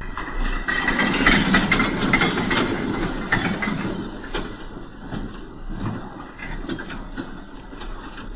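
Model train of vans propelled slowly over the layout's track and points, wheels clicking irregularly over the rail joints with a running rumble. It is loudest in the first few seconds and then eases off.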